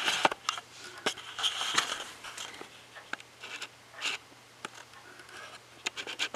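Handling noises: scattered small clicks, scrapes and rustles at irregular moments, over a faint steady low hum.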